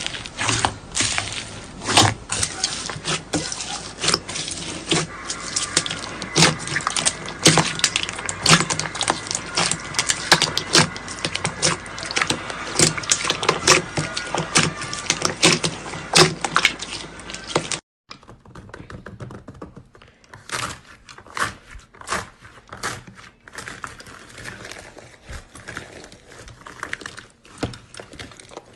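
Slime being pressed and squeezed by hand, giving a dense run of crackling clicks and pops. About two-thirds through it cuts off suddenly to a quieter stretch of sparser clicks.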